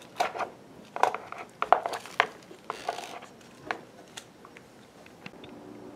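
A few light knocks and clinks of kitchen dishes being handled, with a short rustle about three seconds in.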